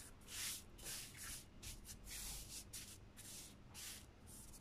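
Hands sweeping and rubbing cinnamon sugar across plastic cling film: a quick series of soft, faint rustling swishes, about two a second.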